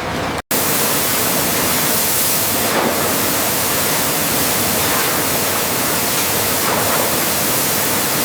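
A steady, loud rushing noise, even from low to high pitch, with no distinct knocks or tones, broken by a brief dropout about half a second in.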